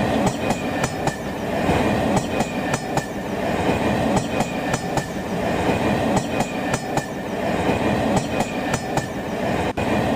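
A train rolling along the track, a steady rumble with the wheels clicking over the rail joints in repeated pairs.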